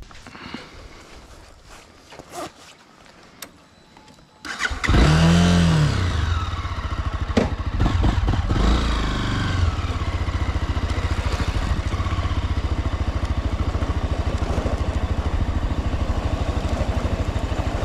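A few faint clicks, then a motorcycle engine starts about four and a half seconds in, revs up and back down briefly, and runs steadily as the bike rides off.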